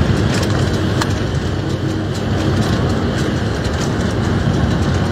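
Diesel locomotive running along the line, heard from its cab: a steady, loud, low rumble with a haze of rail and wind noise and a few faint clicks.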